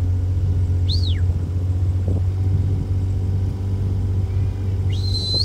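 A vehicle engine running steadily at low revs with a low drone. A short high whistle rises and falls about a second in, and another high whistle rises and holds near the end.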